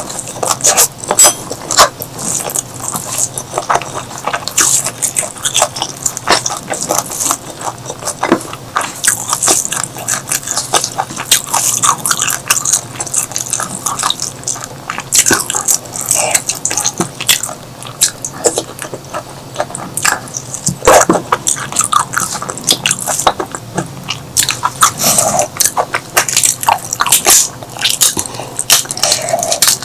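Close-miked eating sounds: chewing and mouth-smacking, with a fast, irregular run of small wet clicks and snaps.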